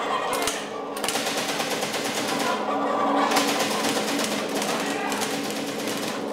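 Simulated gunfire from a shooting-simulator game: a couple of separate shots, then from about a second in a fast, continuous rattle of shots.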